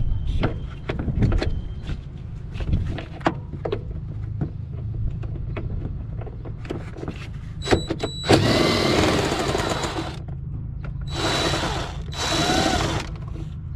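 Metal tools clinking and knocking during fan and fan-clutch work, then three short bursts of a power tool running in the last half, its pitch shifting as it runs.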